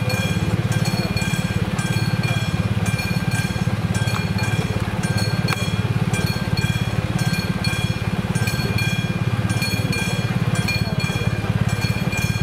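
Level crossing warning bell ringing continuously with a fast, even hammering, the crossing's warning in progress.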